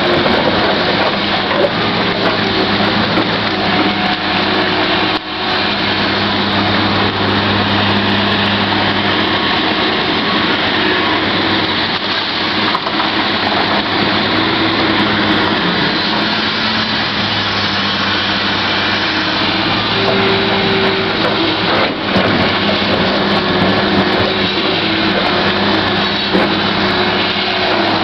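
Komatsu PC1250 hydraulic mining excavator's diesel engine running steadily under load with a low hum, as the machine digs and swings its bucket to load a haul truck.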